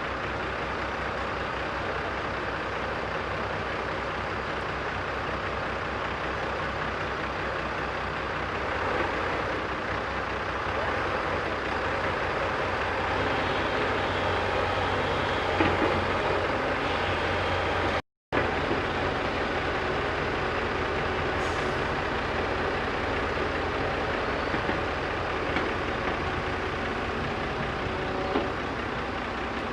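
Diesel engine of a JCB backhoe loader running steadily under load while digging and loading soil, with a few short knocks. The sound drops out completely for a moment a little past halfway.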